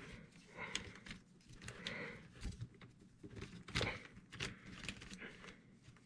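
Small plastic and metal parts of an RC truck's axle being handled by hand: scattered light clicks and taps, with one louder knock about four seconds in.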